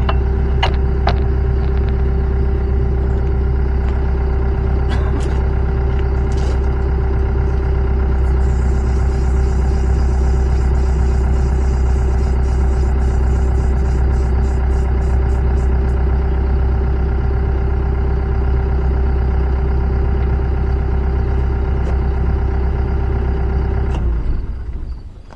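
The drive of a homemade engine rotator running steadily as it slowly turns a heavy diesel engine on its mounting plate: an even mechanical hum with a low drone and a steady mid tone. It shuts off near the end.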